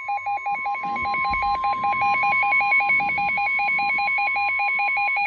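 NOAA Weather Radio warning alarm tone: a single steady high-pitched tone that cuts off about five seconds in. Under it runs a fast pulsing, warbling electronic alert beep, many beeps a second.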